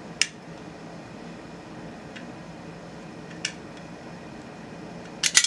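Light clicks and taps from objects being handled, over a steady background hiss: one sharp click just after the start, a fainter one around three and a half seconds, and a quick flurry of clicks near the end.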